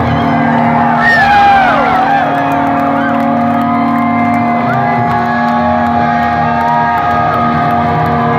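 Live punk rock band letting a chord ring out on amplified electric guitars while the crowd cheers. Whoops rise and fall over it about a second in and again later.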